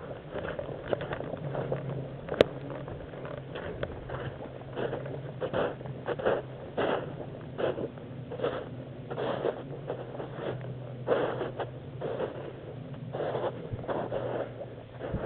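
Footsteps crunching through dry leaves and undergrowth, irregular at about one to two steps a second, over a steady low hum, with one sharp click a couple of seconds in.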